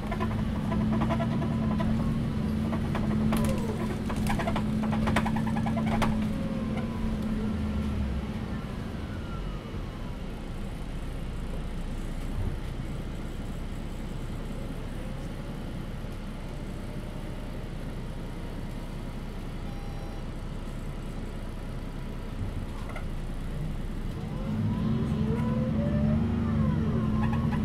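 Inside an MAN NÜ283 diesel bus on the move: the engine drones steadily under power for the first several seconds, with sharp rattling clicks from the bus body, then eases off for a long stretch of quieter rolling rumble, and pulls again with the same drone near the end.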